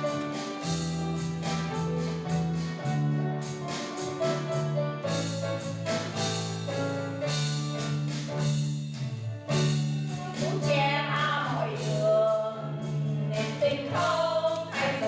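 A vocal quartet singing a gospel-style song over instrumental accompaniment with a steady beat; the voices come in strongly about ten seconds in.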